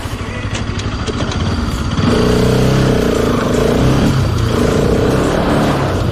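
Bajaj Pulsar RS200's single-cylinder engine idling, then from about two seconds in pulling away and accelerating, its pitch rising and falling through the gears.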